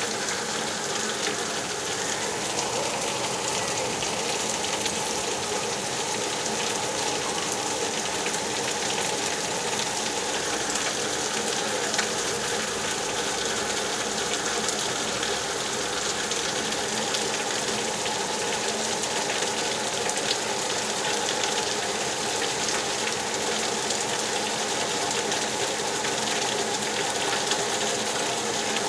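Steady rain falling: an even hiss of many drops, with faint scattered patters, holding level throughout.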